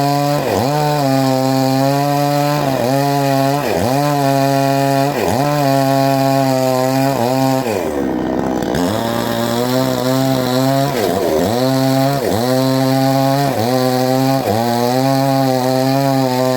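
Two-stroke Total chainsaw with a 24-inch bar cutting wood, its engine running at high speed and dipping in pitch and recovering about once a second, with a longer dip about eight seconds in.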